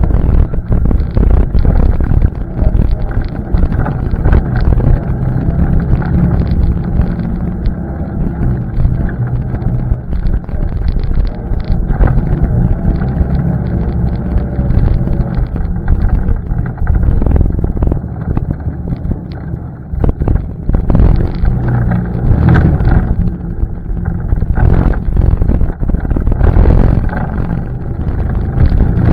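ATV engine running under way on a trail, its note rising and falling with the throttle, with wind buffeting the microphone.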